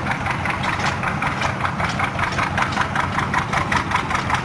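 Antique tractor engine idling, with an even, steady beat of about five firing pulses a second.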